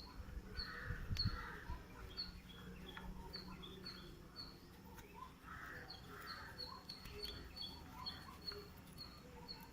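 Small birds chirping repeatedly, a quick series of short, high, slightly falling chirps with softer lower calls among them. A faint click sounds about a second in.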